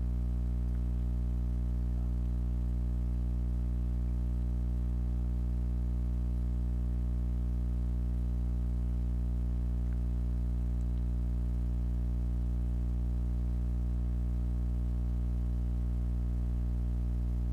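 A steady low hum made of a stack of even tones, most of it deep in the bass, with a faint regular pulsing in one of its tones.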